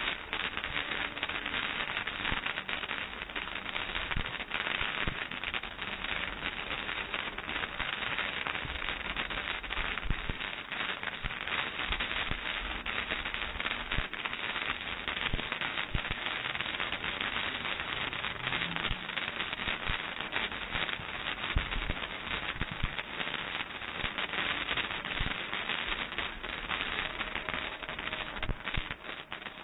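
Ground firework fountains spraying sparks, giving a continuous rapid crackle of many small pops with no break.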